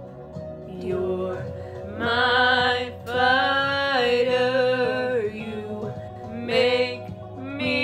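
A young woman singing long held notes with vibrato over an instrumental backing track.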